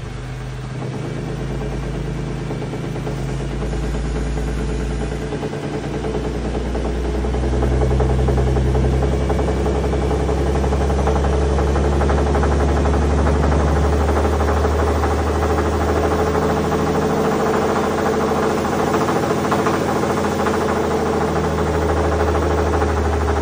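2017 Ford F-150 Raptor's second-gen 3.5L EcoBoost twin-turbo V6 running with a knock, its revs brought up after several seconds and held, growling as it accelerates. The mechanic suspects a failed rod or main bearing.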